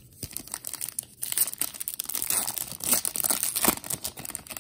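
Foil-lined Stadium Club trading card pack wrapper being torn open and crinkled in the hands as the cards are pulled out: a dense, irregular crackling.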